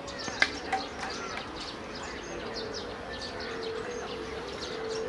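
Birds chirping and twittering, with one sharp knock about half a second in and a lighter one just after, the ball being struck by a racket in a rally.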